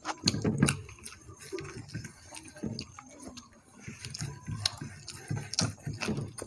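Two people eating rice and dal with their hands: chewing and wet mouth sounds with irregular small clicks, and rice being mixed by hand on the plates.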